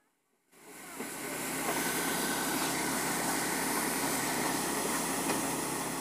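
Wheat combine harvester running steadily: a low engine hum under a broad hiss of the working machinery. It starts about half a second in and builds over the next second.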